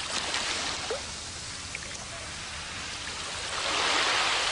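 Water sloshing and rushing, swelling louder near the end.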